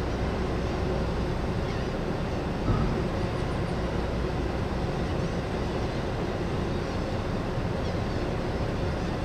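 Steady low engine rumble aboard a car ferry, with a short knock about three seconds in.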